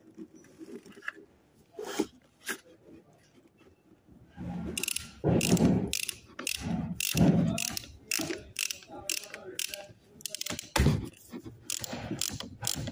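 Hand tools and metal parts clicking and knocking on a Toyota power steering gearbox being rebuilt, in uneven runs of quick clicks, with heavier knocks about five to seven and a half seconds in.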